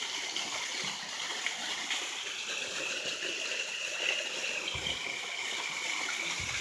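Steady rush of water from a small waterfall and the stream it falls into.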